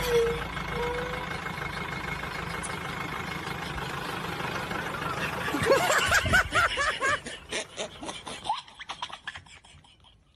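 Bus engine running steadily, then laughter breaking in about six seconds in and dying away in short bursts.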